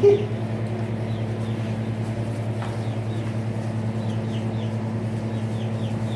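A steady low mechanical hum with a fast, even pulse, from a running motor or engine, with faint short high-pitched squeaks scattered through it.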